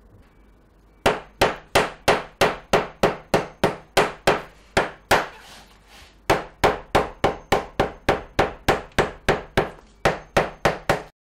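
Cobbler's hammer beating the leather sole of a handmade shoe, sharp even blows about three a second. A pause of over a second comes midway, then the blows resume and stop abruptly near the end.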